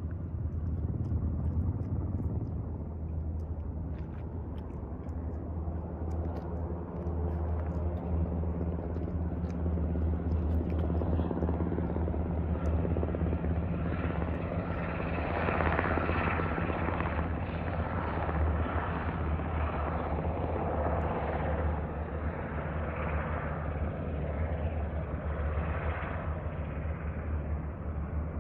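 Helicopter flying, a continuous low drone of rotor and engine that grows fuller and louder about halfway through.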